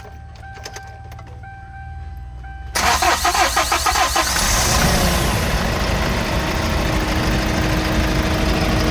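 Kia K2500 diesel engine cranked by its starter about three seconds in, catching quickly and settling into a steady run. It is being started after its number 3 injector was cleaned and refitted, to check whether the annoying injector noise is gone.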